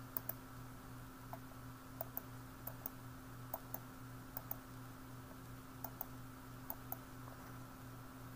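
Faint room tone: a steady low electrical hum with small, irregular clicks scattered through it, often in pairs.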